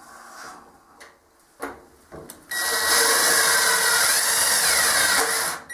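Craftsman 19.2-volt cordless drill driving a hex-head screw through a perforated metal hanger strap into galvanized steel duct, running steadily for about three seconds with a steady high whine, then stopping. A few light handling clicks come before it starts.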